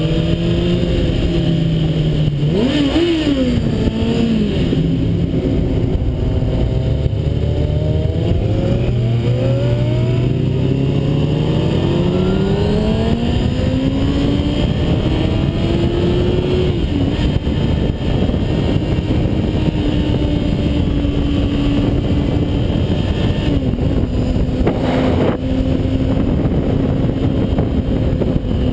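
Kawasaki Ninja ZX-6R inline-four engine under way, its pitch climbing as the bike accelerates, once briefly and then in a long sweep, before holding steady at cruising speed. A constant rush of wind noise runs underneath.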